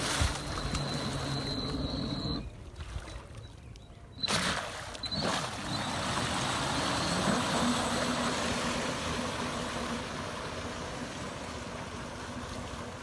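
Remote-controlled motorised rescue buoy running through the water, its thrusters churning up a steady rush of spray with a faint motor hum. The sound drops away briefly a couple of seconds in, then comes back suddenly.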